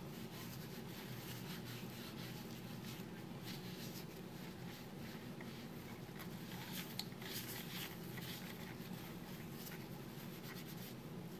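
Faint rubbing and scratching of a dry towel wiped over a plastic computer mouse in short, irregular strokes, over a low steady hum.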